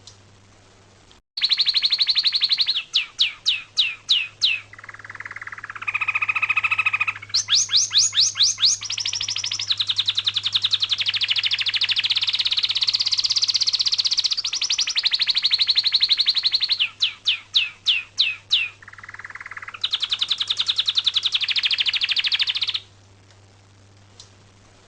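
A songbird singing in long bouts of rapid trills at several pitches, broken by runs of quick descending chirps. The singing pauses briefly and then stops about two seconds before the end.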